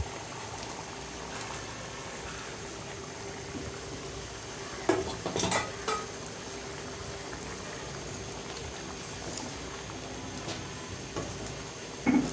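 Curry gravy simmering steadily in a cooking pot, with a spoon clattering against the pot a few times about five to six seconds in and once more near the end as fried pointed gourds are tipped in and stirred.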